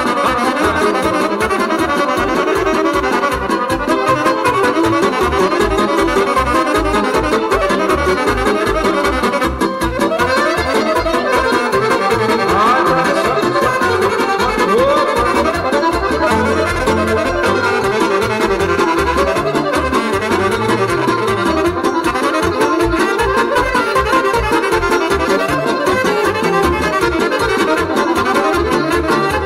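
Live Romanian folk band playing an instrumental passage, melody instruments over a steady bass beat.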